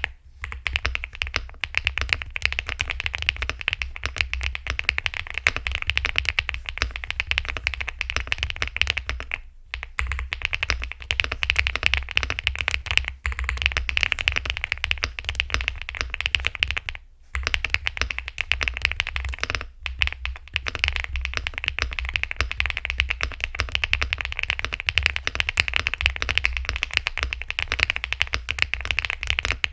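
Continuous fast typing on an Elecfox Inky75, a gasket-mounted aluminium 75% mechanical keyboard with matcha butter linear switches. Typing pauses briefly about a third of the way in and again a little past halfway.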